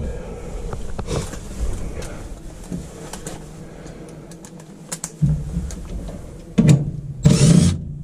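Scattered clicks and knocks of hands working among a furnace's wiring and sheet-metal panels, over a low hum. A steadier low hum comes in about five seconds in, and two louder short bursts follow near the end.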